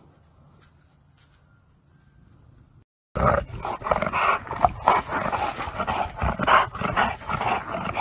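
A dog growling and grumbling loudly at close range, in a run of rough, broken vocal pulses that starts abruptly about three seconds in; before that there is only faint background sound.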